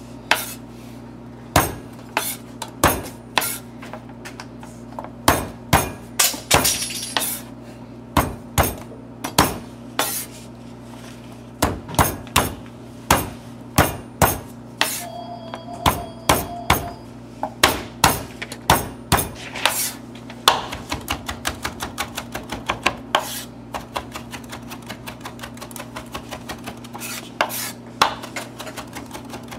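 Chef's knife striking a cutting board again and again as ginger is crushed and minced. The knocks come singly and unevenly at first, then turn to a quick, steady chopping rhythm about two-thirds of the way through. A steady low hum runs underneath.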